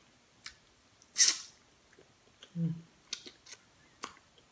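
Mouth clicks and lip smacks of a person chewing and picking at cooked turkey neck meat, a handful of sharp separate smacks, the loudest about a second in. A short low hum from the eater about two and a half seconds in.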